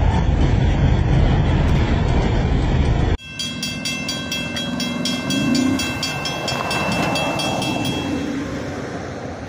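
A freight train rumbling over a railroad bridge, cut off suddenly about three seconds in. Then a railroad grade-crossing bell ringing with evenly repeated strikes as the crossing gates lower, fading out near the end.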